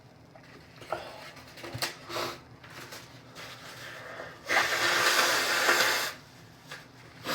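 A person's allergy sneezing fit: a few short sniffs and breaths, then a loud, forceful blow lasting about a second and a half, a nose being blown hard to clear it.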